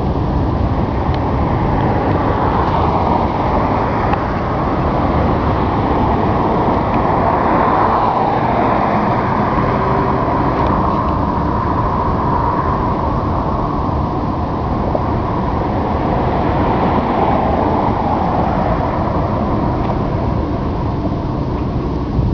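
Jet noise from a Boeing 747's four engines as the airliner comes in to land: a loud, steady rushing sound that swells slightly twice.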